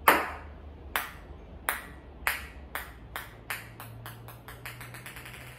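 Ping pong ball bouncing on a hard surface after a missed throw at the cups: a sharp first bounce, then about a dozen lighter bounces coming quicker and quicker until it rattles to rest.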